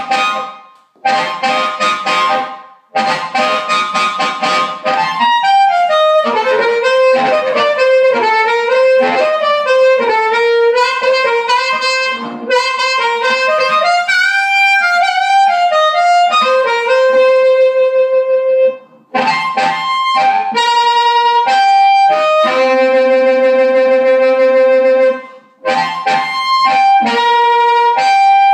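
Blues harmonica played into a hand-cupped microphone and amplified through a homemade valve (tube) push-pull harp amp. It opens with short chords, moves into a quick run of single notes that bend down and back up, then settles into long held notes and chords, broken by a few short pauses.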